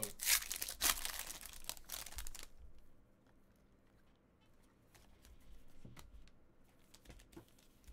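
A foil trading-card pack wrapper torn open and crinkled by hand, a dense crackly rustle lasting about two and a half seconds. Fainter rustles and light clicks follow.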